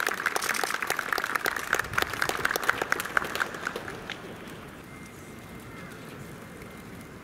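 A small crowd clapping, which dies away about four seconds in and leaves only low background noise.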